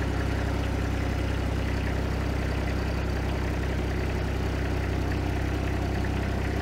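Ditch Witch SK755 mini skid steer engine running steadily while its hydraulic loader arm is raised.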